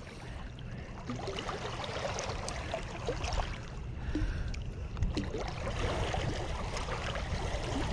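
Steady noise of water and wind at the water's edge, with scattered small clicks and rustles from handling a hooked fish while the hook is worked out of its gill.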